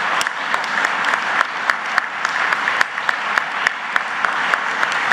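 Audience applauding: a steady patter of many hands clapping, with some sharper single claps standing out.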